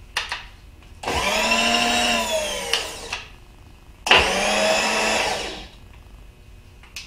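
Bridgeport X-axis power feed motor whining as it drives the mill table. It runs twice, about two seconds each time, starting abruptly and dying away as the feed cuts out, which the machinist puts down to the power feed's stop cutting it off.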